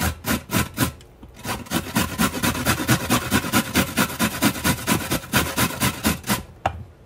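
Carrot being grated on a four-sided stainless steel box grater: quick rasping strokes, a few at first, a short pause, then a steady run of about four a second that stops near the end.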